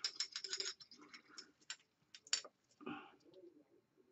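Light clicks and taps of small containers and utensils being handled while white colorant is measured out: a quick run of clicks in the first second, then a few scattered taps with one louder knock about two and a half seconds in.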